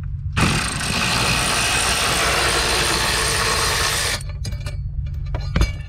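Power ratchet running steadily for about four seconds as it spins a bolt out, then cutting off suddenly, followed by a few sharp clicks near the end.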